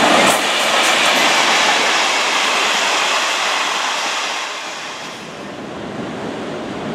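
Locomotive-hauled passenger carriages rolling past on the rails, the wheel and track rumble dying away as the train moves off. Near the end a steady wash of surf on the shore takes over.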